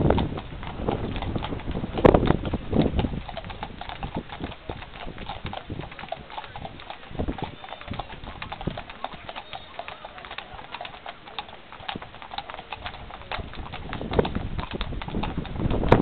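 Hooves of harness horses clip-clopping on hard ground as they pass, a quick, irregular run of hoof strikes, louder about two seconds in and again toward the end.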